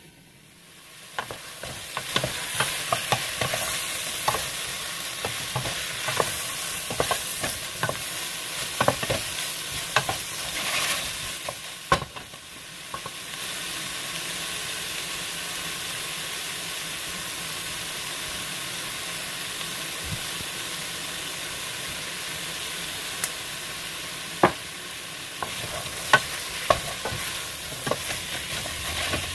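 Chicken pieces with ginger and onion sizzling as they sauté in a stainless steel stockpot, with a wooden spoon scraping and knocking against the pot as they are stirred. The sizzle sets in about a second in; the clatter of stirring is busiest in the first half and again near the end, with a steadier sizzle between.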